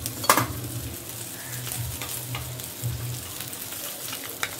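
Rohu fish pieces frying in hot mustard oil in a kadai, a steady sizzle, with a spoon whisking a spice and yoghurt paste in a bowl: one sharp knock just after the start and a few quick clicks near the end.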